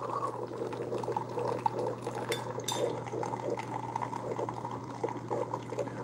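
Three Keurig K-Supreme single-serve coffee makers brewing at once, with a steady low hum under coffee streaming into the mugs. Two light clicks come about two and a half seconds in.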